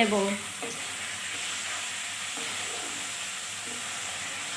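Pieces of paneer frying in hot oil in a kadai: a steady sizzle.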